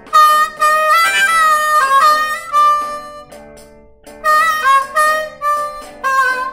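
Harmonica played as a blues with the hands cupped around it: a phrase of short notes that slide in pitch, a brief pause about halfway, then a second phrase.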